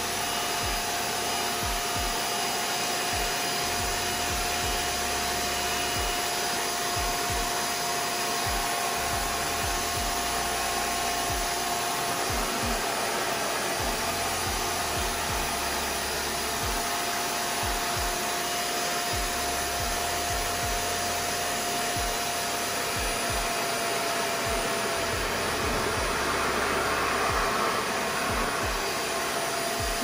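RevAir reverse-air hair dryer running steadily, pulling air and hair into its suction tube with a constant rush and a steady whine, as it dries a section of wet hair. It gets slightly louder near the end.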